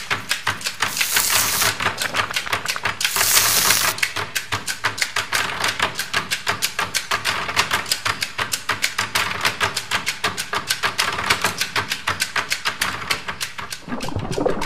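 Fast, even ticking percussion in a soundtrack, about seven or eight taps a second, with two short hissing bursts in the first four seconds.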